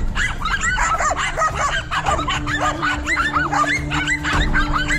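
Several dogs barking and yelping in quick, overlapping high yaps that go on without a break, as they hold a cornered monitor lizard at bay. A steady low tone runs underneath from about two seconds in.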